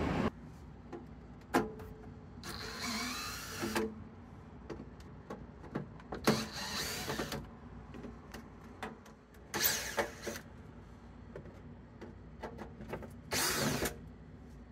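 DeWalt cordless drill running in four short bursts of about a second each, backing out the screws that hold a sheet-metal air divider in a VTAC wall plenum, with light clicks and knocks of handling between the bursts.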